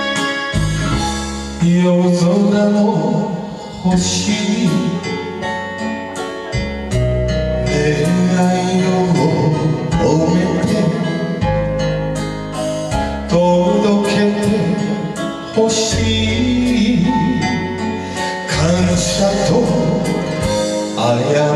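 A man singing a Japanese ballad into a microphone over instrumental backing music.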